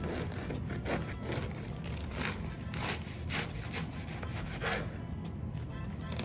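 Knife sawing through a stale, hardened French loaf on a wooden cutting board: a series of uneven back-and-forth sawing strokes through the crisp crust, with scraping against the board.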